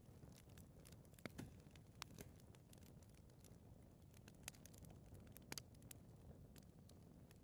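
Faint fire burning in a fireplace: a low steady flame rumble with irregular sharp crackles and pops, a few a second, the loudest about a second in and again about five and a half seconds in.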